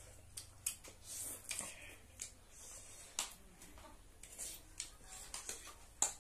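Two people eating spicy instant noodles: slurping and chewing, with spoons and forks clicking against the plates in scattered sharp ticks.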